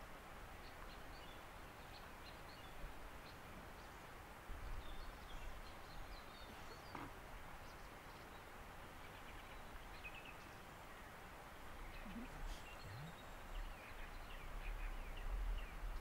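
Faint, scattered bird chirps over a steady background hiss, with low rumbles about a third of the way in and again near the end.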